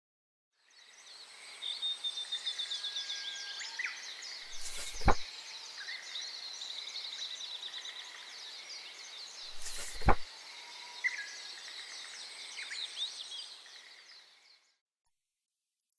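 Nature ambience of many small birds chirping rapidly over a steady hiss of insects, fading in and fading out. Two sudden hits with a low thump break in about five seconds apart.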